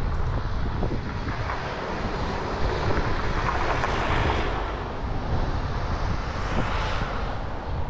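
Wind rumbling and buffeting on the microphone of a car-mounted camera, over the road noise of a car driving slowly along a town street. The hiss swells a little twice, about halfway through and near the end.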